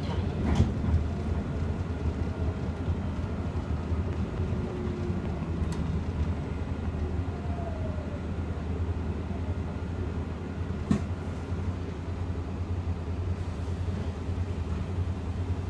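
Cabin noise inside an Iveco Urbanway 18 Hybrid articulated city bus on the move: a steady low rumble, with a sharp knock about half a second in and another near eleven seconds.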